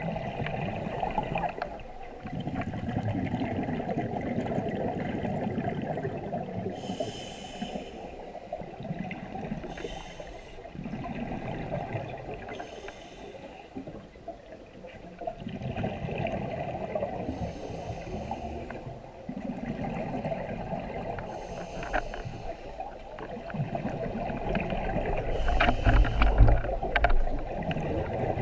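Scuba diver breathing through a regulator, heard underwater: a short hiss on each inhale, then a longer gurgling rumble of exhaled bubbles, repeating every few seconds. A louder low rumble comes about two seconds before the end.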